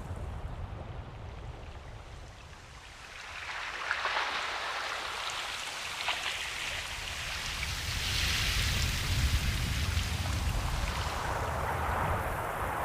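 Ocean waves washing in, a steady hiss over a low rumble that swells up in several surges after a brief lull.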